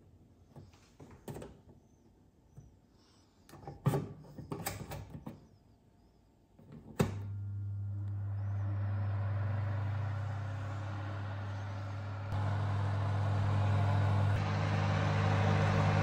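Clicks and knocks from handling an electric oven's temperature knob and door, then a sharp click about seven seconds in and the oven's fan starts, running with a steady hum and hiss.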